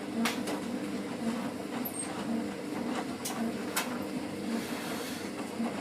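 Laundry appliance running: a steady motor hum that pulses about twice a second, with a few sharp clicks.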